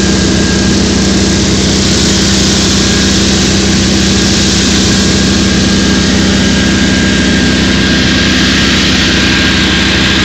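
An engine running steadily at an unchanging pitch, with a constant low hum.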